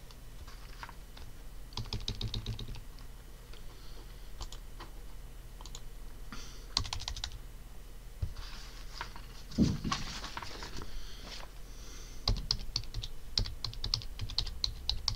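Typing on a computer keyboard in short bursts of key clicks, faster and denser near the end as a word is typed out. One heavier knock stands out about two-thirds of the way through.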